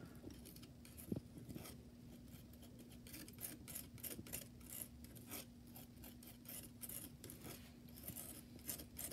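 Gritty mudstone watercolour paint being worked with gum arabic on a glass palette: a rapid run of faint, scratchy scraping strokes.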